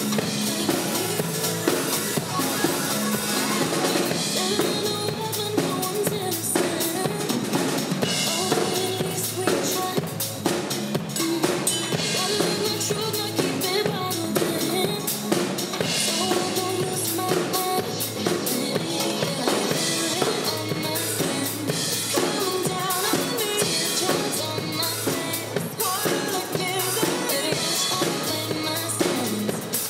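Acoustic SJC drum kit played live along to a pop-dance backing track: steady kick and snare beat with cymbals over the recorded music.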